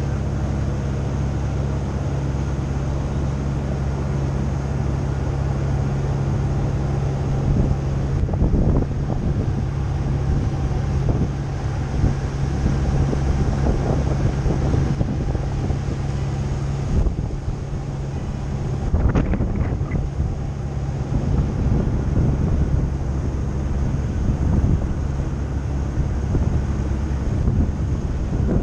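River ferry's engine running with a steady hum while wind buffets the deck-mounted microphone. From about eight seconds in, the wind gusts harder and partly covers the hum.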